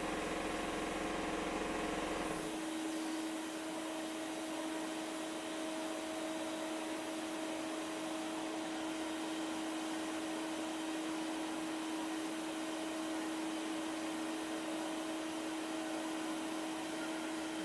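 Sandblasting cabinet in use: compressed air drives abrasive media from a blast gun onto the rusty steel of a car's rear swing arm, giving a steady hiss over a constant hum. A deeper machine hum stops suddenly about two seconds in.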